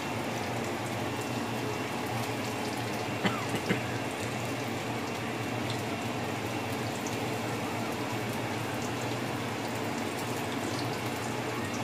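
Battered fish frying in a skillet of hot oil: a steady sizzle, with two light clicks a little after three seconds in.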